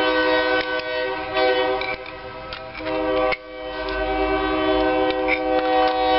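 Locomotive air horn on a passing coal train, sounding a long steady multi-note chord. It breaks off briefly about three seconds in, then sounds again.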